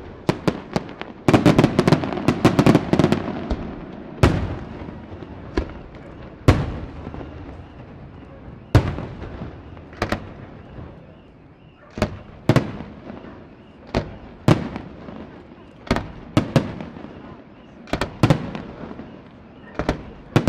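Aerial firework shells bursting: a rapid cluster of bangs about a second in, then single bangs every second or so, each trailing off in an echo.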